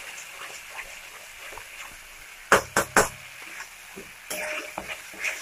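Flat spatula stirring a thick spice paste in a metal kadai, with faint sizzling. About two and a half seconds in the spatula knocks against the pan three times in quick succession.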